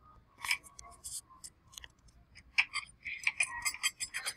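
Screwdriver driving screws to fix a UPS circuit board in place: an irregular run of sharp clicks and scrapes, busiest in the second half.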